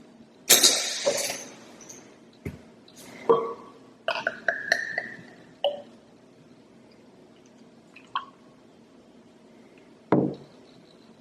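Drinking glasses and glass bottles being handled and set down on a hard surface: a string of sharp clinks and knocks with short ringing, bunched in the first half, then a few single knocks, the last about ten seconds in.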